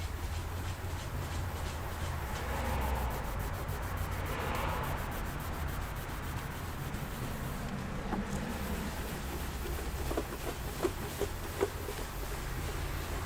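Cloth rubbing and wiping over the desktop computer's case, a steady scrubbing noise, with a few small clicks near the end.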